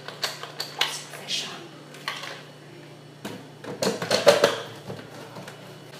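Hard plastic clicks and knocks as a Ninja blender's lid is handled and pressed onto the pitcher, clustering about three to four and a half seconds in, over a steady low hum.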